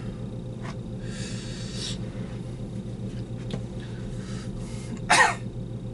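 A person breathing out softly, then one short harsh cough about five seconds in, over a steady low hum.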